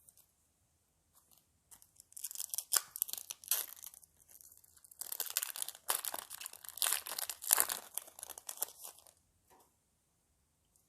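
Foil wrapper of a Yu-Gi-Oh Phantom Rage booster pack being torn open and crinkled, in two spells of crackling: one about two seconds in, a longer one from about five to nine seconds.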